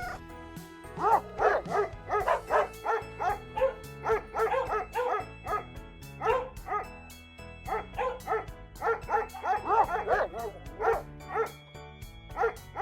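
A dog barking over and over in quick runs of short barks, about two or three a second, with brief pauses between runs, over background music.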